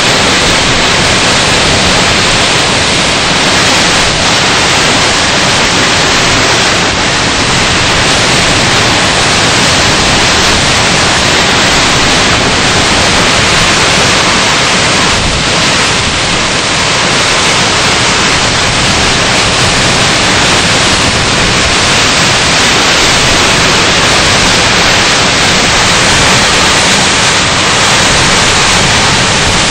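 Hurricane-force wind with wind-driven rain: a loud, steady rush of noise that does not let up.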